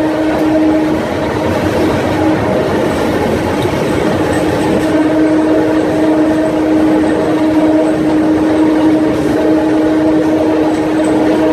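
Historic train hauled by E.626 and E.428 electric locomotives running, heard from a carriage window: a continuous rumble of wheels and running gear with a steady hum over it. The hum breaks off about a second in and comes back about a second and a half later.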